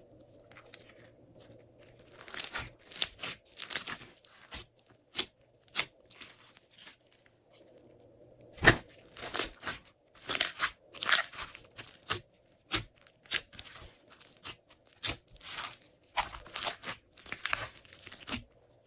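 Glossy slime being squished, stretched and pressed by hand, giving irregular sharp clicks and crackling pops.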